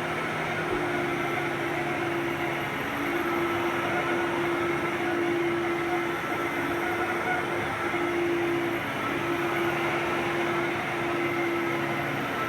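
Fantom Thunder upright vacuum cleaner running steadily, its motor giving a constant whine over a rush of air.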